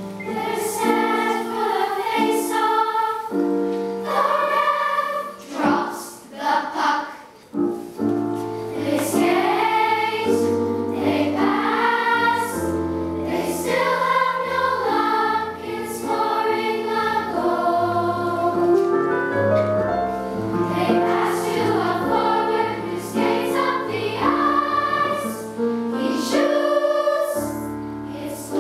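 Children's choir singing together, held notes moving from pitch to pitch, with a couple of short breaks between phrases about six to eight seconds in.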